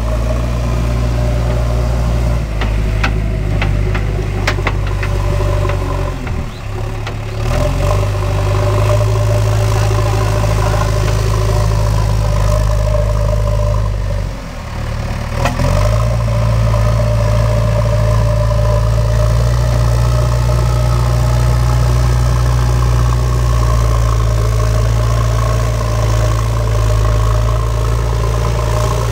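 JCB backhoe loader's diesel engine running steadily as the machine levels soil with its front bucket, its low note dropping away briefly twice. A few sharp clicks sound about three to five seconds in.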